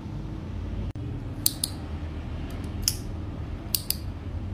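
A retractable ballpoint pen clicking a handful of times, some clicks in quick pairs, over a low steady background hum.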